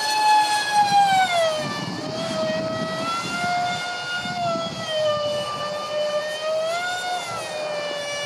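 Twin electric ducted fans of a Freewing Su-35 RC jet (5-blade rotors, 2600kv motors on 6S) screeching in flight. The high whine drops in pitch about one and a half seconds in as the fans slow, wavers, then rises briefly near the end. The screech carries vibration from cheap shaft adapters and fan mounts that had come loose.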